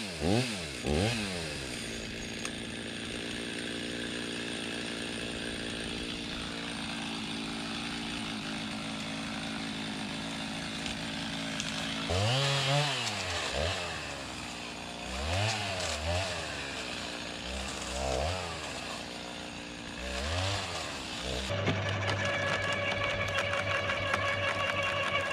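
Chainsaw dropping from full throttle to idle just after a felling cut, idling steadily, then revved in several short bursts. Near the end an electric garden shredder takes over, running with a steady hum.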